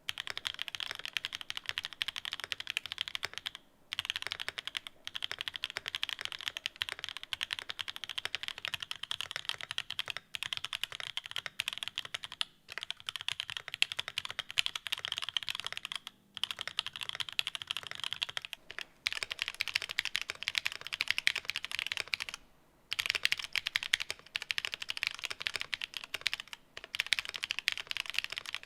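Steady typing on a The New Eighty mechanical keyboard fitted with pink linear switches and Cherry-profile keycaps. The typing comes in runs broken by short pauses, with different switches heard back to back.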